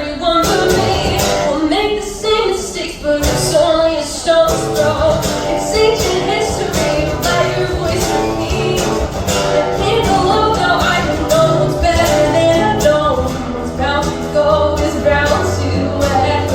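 A band playing a song live, with singing over the full band and a steady beat of drum hits.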